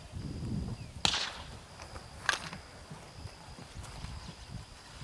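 A single sneeze about a second in, a short sharp burst of noise, followed by a brief click about a second later.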